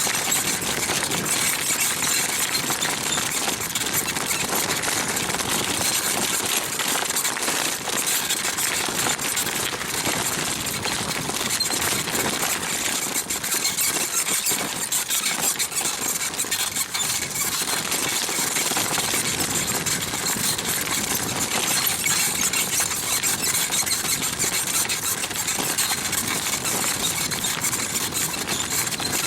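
Small rebuilt Mifa bicycle saddle squeaking loudly, a rapid continuous squeal as it is ridden and rocked under the rider's weight.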